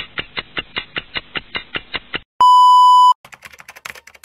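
Edited sound effects for an animated end screen: a fast, even run of clicks, about seven a second, then a loud steady electronic beep lasting under a second, then a quick patter of typewriter-style key clicks.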